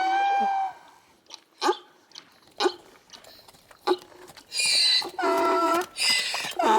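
Donkey braying: a long held note ends just under a second in, a few short sharp clicks follow, then a hee-haw bray begins about four and a half seconds in, alternating a wheezy high breath with a lower pitched call.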